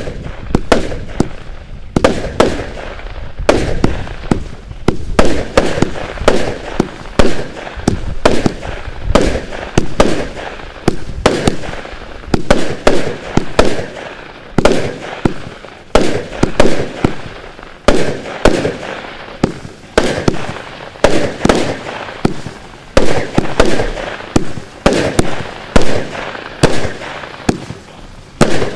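A 209-shot firework cake firing shot after shot, about one to two sharp reports a second, each launch followed by the burst of its stars.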